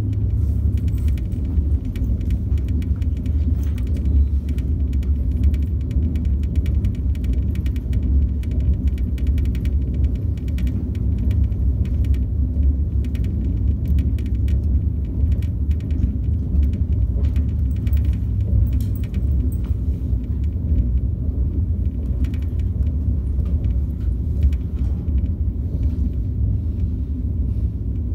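Steady low rumble of a KTX-Sancheon high-speed train running at speed, heard inside the passenger cabin, with faint scattered ticks and rattles.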